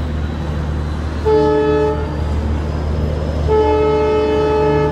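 Indian Railways broad-gauge locomotive horn sounding twice, a short blast and then a longer one, over a steady low drone.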